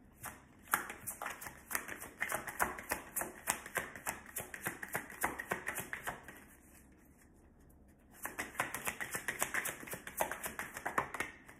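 A deck of tarot cards being shuffled by hand: a rapid run of flicking clicks as the cards drop from hand to hand, in two spells of several seconds with a short pause between them.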